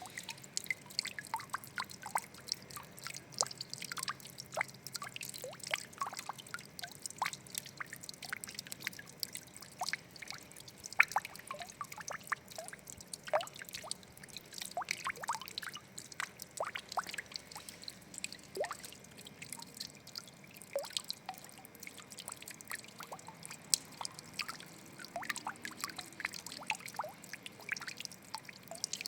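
Water trickling and dripping, with many small droplet plinks scattered irregularly throughout.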